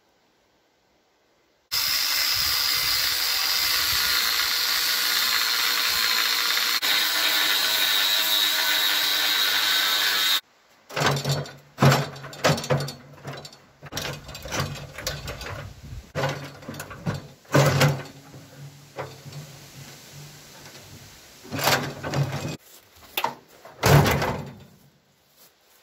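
Rusty tractor parts being dismantled and handled. A steady, loud machine or tool noise runs for about eight seconds, then stops abruptly. It is followed by irregular metal clanks and knocks, the loudest near the end as rusty sheet-metal fenders are handled and dropped.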